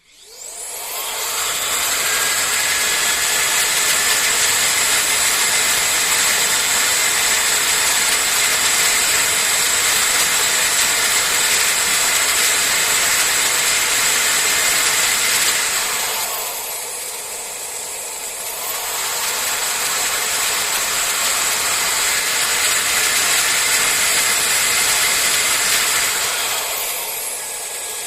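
Panasonic Nanocare Ultimate EH-NC50 hair dryer switched on, its fan motor spinning up with a rising whine into a steady rush of air with a high whine. About 16 s in the airflow drops to a lower setting for a few seconds, then returns to full, and drops again near the end.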